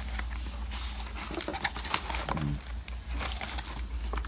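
Cardboard boxes and plastic packaging being handled: irregular rustling and crackling with small taps and clicks as the disc boxes are picked up and moved.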